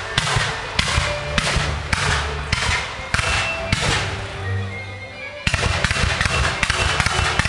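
Fireworks firing in a steady series of sharp bangs, a little under two a second, which come thicker from about five and a half seconds in. Music plays underneath.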